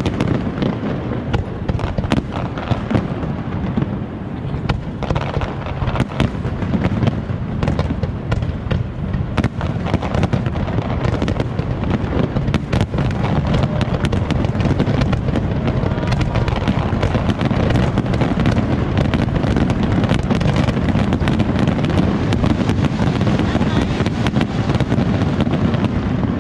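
Large aerial fireworks display: shells bursting in quick succession, with sharp bangs over a continuous low rumble. The barrage grows denser and louder about halfway through.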